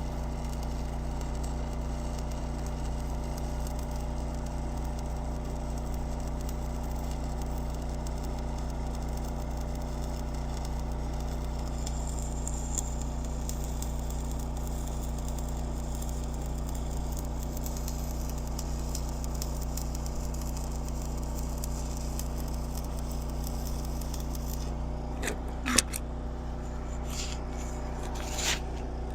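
Steady low mechanical hum with a few sharp clicks or knocks near the end.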